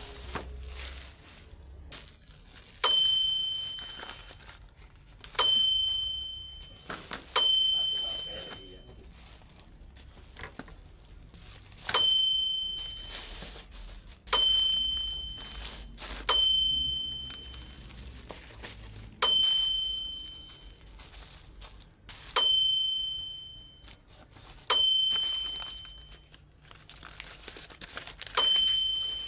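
Plastic packaging crinkling and tearing as shopping is unpacked, broken by a high bell-like ding about ten times, each ringing out for a second or so.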